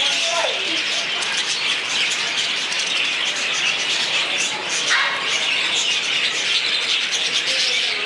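A flock of budgerigars chattering and chirping all at once: a dense, continuous mass of high twittering.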